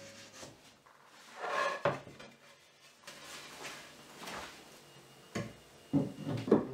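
Wooden shelf boards being handled: a short scraping slide of wood on wood about a second and a half in, then a few sharp wooden knocks near the end as a shelf is set into a wooden cabinet.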